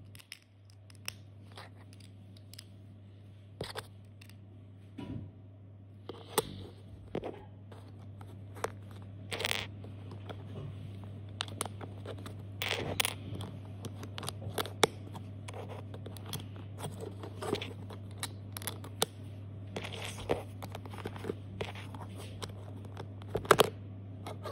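Lego bricks being handled and pressed together: irregular small plastic clicks, snaps and scrapes, a few per second at times, over a steady low hum.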